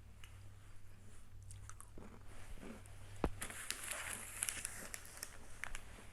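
Close-up crunching and chewing of a small piece of a green tea milk snack, with faint scattered crackles and one sharp crack about three seconds in.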